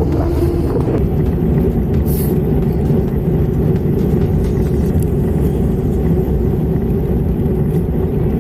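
Steady low rumble of wind buffeting the microphone and road noise while cycling, unbroken throughout.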